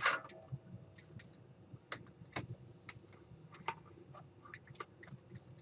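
A knock as a small hand tool is set down on the bench, then scattered light clicks and taps of tools being handled, with a brief soft hiss about halfway through.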